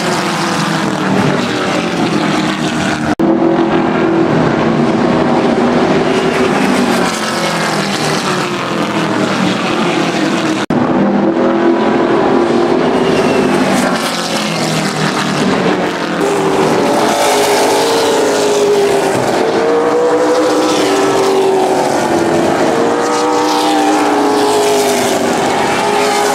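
Super late model stock car engines running at racing speed on an asphalt oval. Cars pass with the engine pitch sweeping up and down, several at once near the end. The sound cuts off abruptly and starts again about three seconds in and near eleven seconds.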